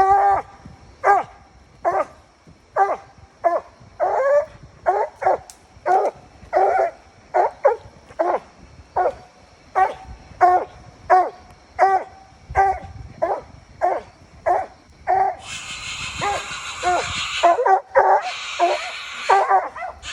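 Coon dog barking at the tree where it has treed game, steady chopping barks at about one and a half a second. A rushing hiss joins the barking about three-quarters of the way in.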